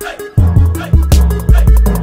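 Background music with a strong bass beat, about two bass hits a second, and crisp high percussion.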